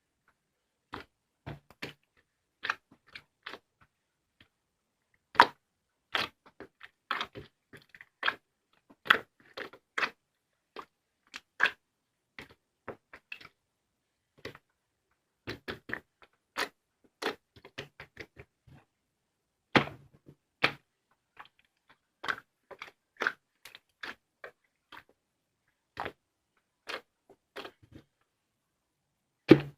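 A series of short, sharp, irregular clicks and crunches, one to three a second, with silence between them.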